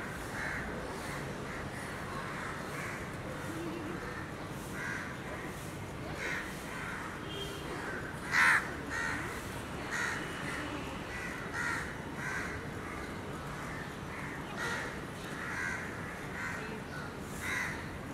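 Crows cawing over and over, short calls about once a second, with one louder caw about eight seconds in.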